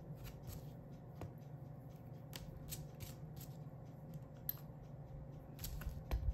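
Small pieces of art glass being handled and set in place, giving scattered light clicks, with a few sharper clicks about two and a half, four and a half and six seconds in.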